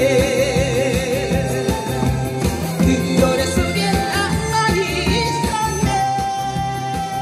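Harmonicas playing a Korean pop melody in long held notes, some with a wavering vibrato, together with singing, over an amplified backing track with a steady beat.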